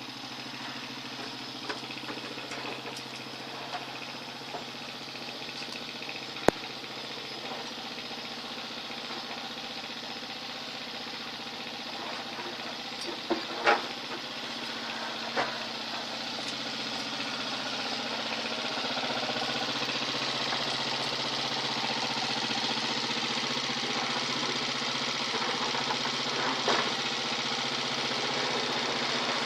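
Motorcycle engine running steadily, getting a little louder in the second half, with a few sharp clicks and knocks along the way.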